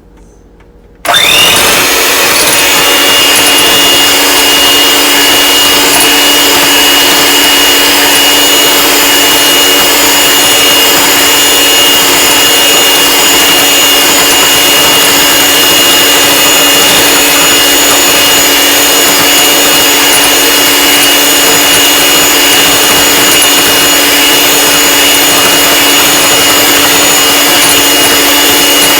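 Electric mixer switched on about a second in and running steadily at high speed, with a steady hum and a high whine, beating egg whites as sugar is added to whip a macaron meringue toward stiff peaks.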